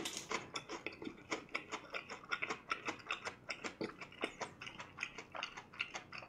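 Close-miked chewing of crispy fried chicken: a steady run of small crackling clicks, several a second.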